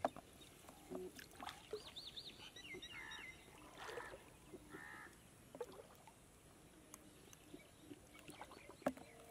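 Faint drips, trickles and small splashes of water off a wet fishing net as it is hauled in by hand over shallow water and piled into a plastic basin, with soft scattered clicks. A bird calls briefly a couple of times.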